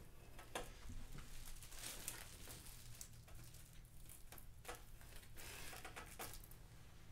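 Faint, irregular crinkling and crackling of thin plastic window-insulation film, pulled taut and pressed by hand onto double-sided tape around a window frame.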